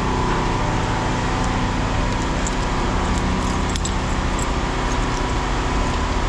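An engine running at a steady idle, a constant low hum with a steady whine above it, and a few faint metallic clinks.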